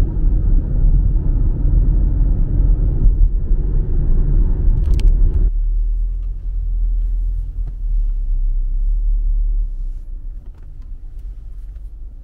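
Car cabin road noise while driving at speed: a steady low rumble of tyres and engine. A click comes about five seconds in, then the rumble becomes much quieter and eases further near the end.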